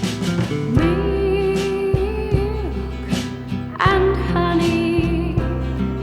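Background music: a song with guitar and a steady drum beat, with two long held notes, the first starting just under a second in and the second just before four seconds in.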